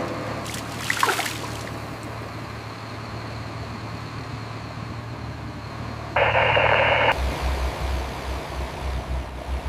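Steady low machine hum with a few sharp clanks in the first two seconds, a loud burst of hiss for about a second near six seconds in, then a pulsing low rumble like a heavy engine running.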